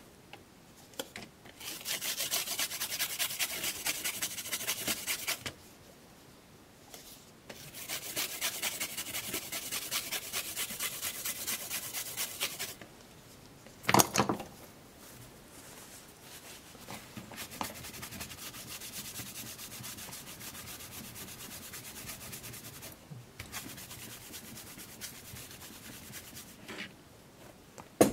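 Scrubbing of a Casio VL-1's printed keypad circuit board to clean its contact pads: two long spells of rapid, even rubbing strokes, a sharp knock about halfway, then a longer, quieter spell of rubbing.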